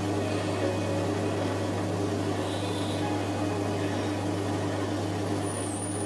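Metal lathe running with a steady hum as a twist drill in the tailstock bores into the end of a spinning brass rod.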